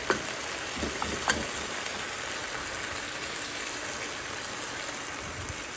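Red chile sauce sizzling steadily as it is strained through a plastic colander into a hot pan of fried tortilla pieces, with a few light clicks of the metal spoon in the first second and a half.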